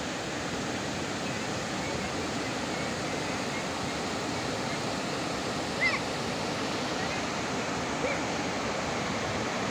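Waterfall rushing steadily, with a few short high chirps over it, the loudest about six seconds in.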